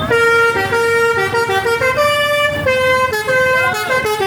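Telolet musical bus horn on a Basuri bus playing a loud tune of short held notes stepping up and down in pitch.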